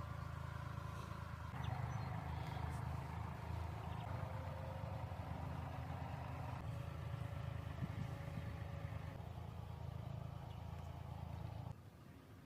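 A vehicle running steadily with a low rumble, which drops away abruptly near the end.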